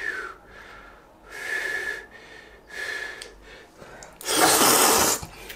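A person eating hot udon noodles: short airy breaths through the lips, three carrying a faint whistle, then a longer, louder rush of air about four seconds in.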